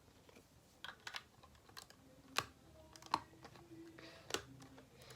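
Lego pieces of a brick-built puzzle box clicking and knocking as they are handled: about six sharp plastic clicks, the loudest about two and a half seconds in.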